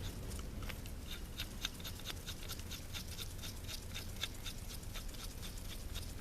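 Light, irregular clicking and ticking, several clicks a second, as a door striker bolt fitted with a new bushing is threaded back into the door pillar.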